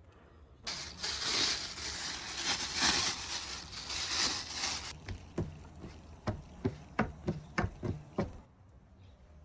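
About four seconds of harsh rustling or scraping, then about a dozen sharp knocks in quick succession, from food being prepared.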